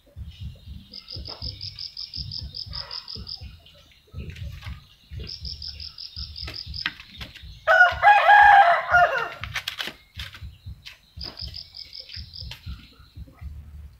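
A rooster crows once, about eight seconds in, a loud call of about two seconds that falls slightly in pitch. Three times, runs of rapid high chirps come at about eight a second, and soft low knocks and scrapes come throughout as puppies push styrofoam food trays about on a concrete floor.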